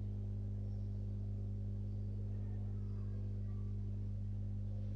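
A steady low hum that stays unchanged throughout, with no other distinct sound.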